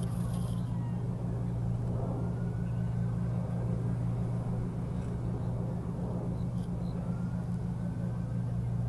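Steady low drone of a helicopter's engine and rotor, unchanging throughout, with a few faint gliding tones above it.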